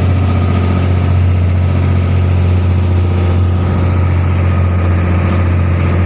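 Outrigger fishing boat's engine running steadily, a loud, even low drone with a fast regular pulse.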